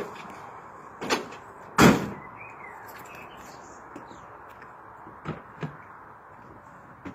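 Two thuds about a second apart as a bag is dropped into a pickup truck's metal load bed, the second the loudest, with a short ring after it. A few faint clicks follow later.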